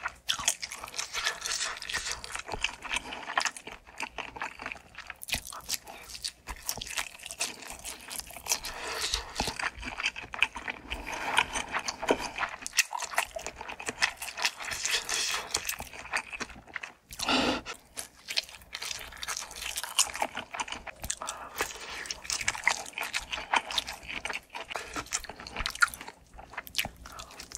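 Crunchy food bitten and chewed close to the microphone: a continuous run of crisp, irregular crackles, with one louder, deeper sound about two-thirds of the way through.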